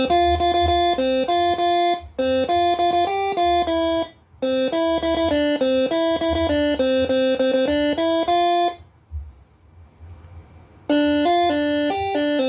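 Six-trumpet 'telolet basuri' air horn module (Moreno MS5) playing a quick melody of short, bright notes. It plays in runs, with brief breaks about two and four seconds in and a pause of about two seconds near the end before a new tune starts, over a faint low rumble.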